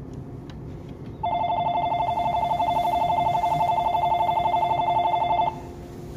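An electronic two-tone warning bell rings rapidly and evenly for about four seconds, starting and stopping abruptly. Under it is the steady running noise of the Shinano Railway 115 series electric train, heard through open windows.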